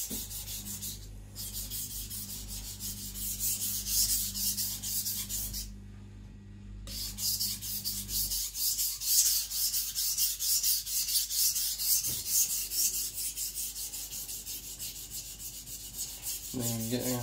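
A Zwilling Five Star compact chef knife's edge is stroked back and forth on a wet Naniwa Aotoshi 2000-grit whetstone, making a run of quick, even rasping strokes with a short pause about six seconds in. The edge bevel is being ground at about 15 to 18 degrees to remove the original factory bevel.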